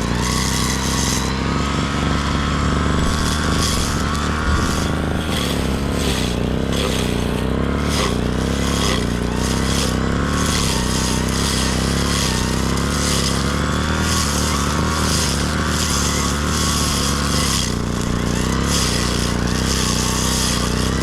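Brush cutter engine running steadily at working speed, its pitch wavering a little under load, with a hiss that swells and fades about once a second as the blade sweeps through grass.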